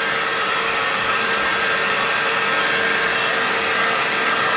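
Handheld hair dryer running steadily, blowing on a puppy's damp fur: an even rush of air with a steady hum.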